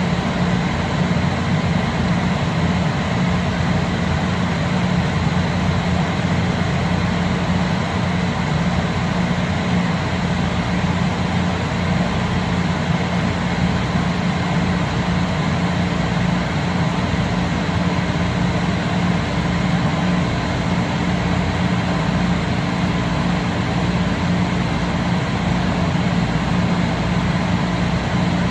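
A steady mechanical hum with an even hiss that does not change.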